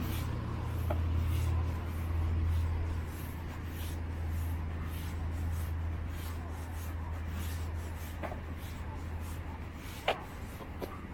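Footsteps on a park trail while walking, a soft scuffing every second or so over a steady low rumble, with one sharp click about ten seconds in.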